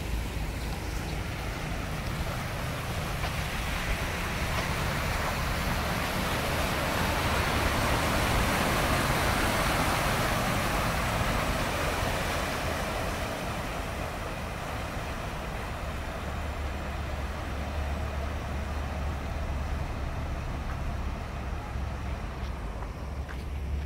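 Heavy dump truck driving past close by through shallow muddy floodwater, its tyres churning the water. The rush of noise swells to a peak about ten seconds in and then eases off, over a steady low engine hum.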